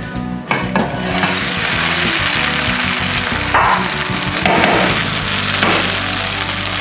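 Butternut squash and potato rösti sliding back into hot olive oil in a frying pan and sizzling, the hiss starting suddenly about half a second in and then running steadily.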